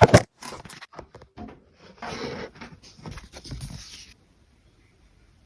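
Merchandise packaging being handled and opened: two loud sharp clicks at the start and a few lighter taps, then about two seconds of rustling that stops about four seconds in.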